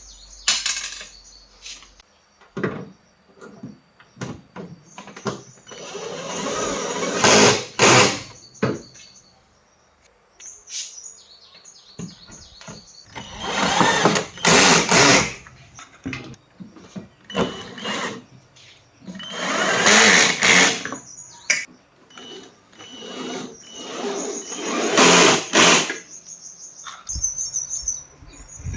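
Small handheld power tool, drill-like, running in repeated short bursts of a second or two, about five times, with a faint high whine between the bursts.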